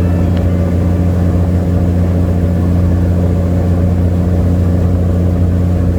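A sightseeing boat's engine running steadily: a deep, even hum with no change in pitch.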